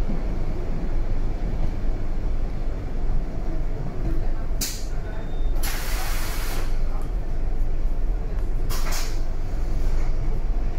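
BVG A3L71 U-Bahn train running with a steady low rumble. Three sharp bursts of hiss cut in around the middle; the second lasts about a second.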